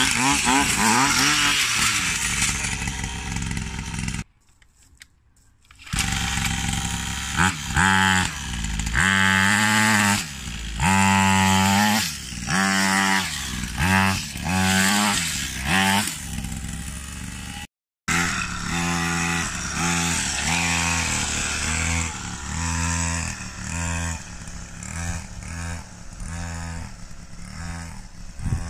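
Chinese minicross mini dirt bike's small two-stroke engine revving hard in repeated short bursts while its rear wheel spins in loose dirt, now running strongly after a repair for hard starting and stalling. There is a brief silent break about four seconds in. Near the end the engine is fainter and steadier, farther off.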